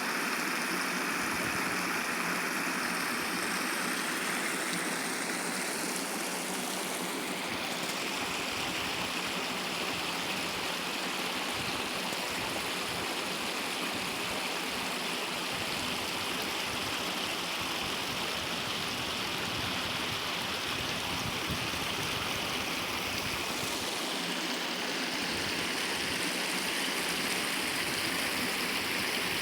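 Stream of water flowing steadily, a continuous rushing with no breaks.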